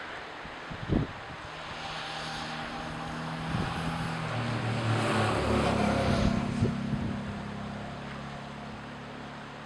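A passing engine's steady hum that swells to a peak about halfway and then fades, over wind noise on the microphone, with a single thump about a second in.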